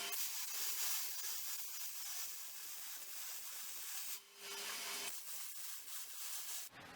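A steady hissing noise, high-pitched with no low rumble. It breaks off briefly about four seconds in, then resumes and stops shortly before the end.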